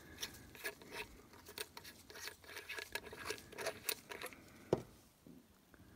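Gloved hands handling and turning a machined metal lightsaber hilt: soft rubbing and a string of small irregular clicks, with one sharper click about three-quarters of the way through.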